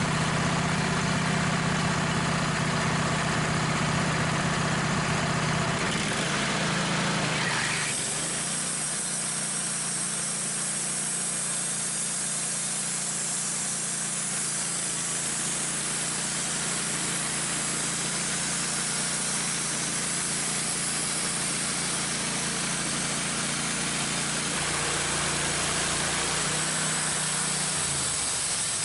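Wood-Mizer LT15 portable band sawmill running, its engine driving the band blade through a walnut crotch log. About seven seconds in, the engine's low note drops away and a steady high hiss takes over; the low note comes back more strongly near the end.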